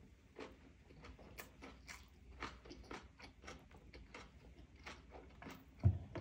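Someone chewing roast duck, with faint irregular crunching clicks about two or three times a second and a louder knock near the end.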